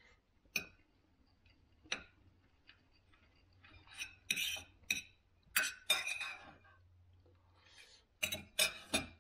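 Knife and fork clinking and scraping on a dinner plate while eating: a scattering of sharp clicks, with a busy run about four to six seconds in and another near the end.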